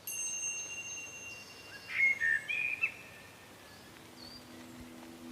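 Forest ambience with birdsong: faint bird calls throughout and a burst of louder chirps about two to three seconds in. A steady high ringing tone opens it, and a low held tone comes in near the end.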